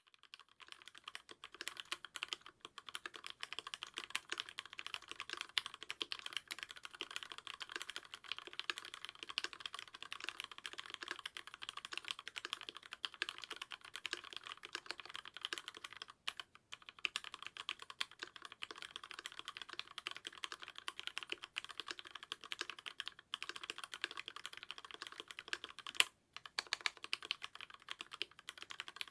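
Typing on an Archon DX2 mechanical keyboard with lubed Cherry MX Black linear switches on 65 g springs, in an aluminium plate with silicone dampening: a fast, continuous run of keystrokes, broken by two short pauses, about halfway and near the end.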